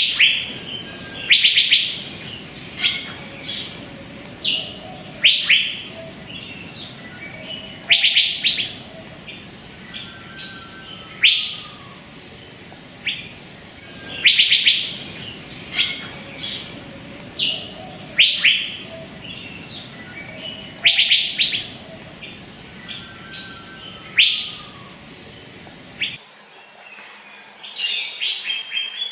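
Asian fairy-bluebird (cucak biru, Kalimantan form) calling: short, sharp, rising whistled notes, grouped in brief phrases that repeat every two to three seconds.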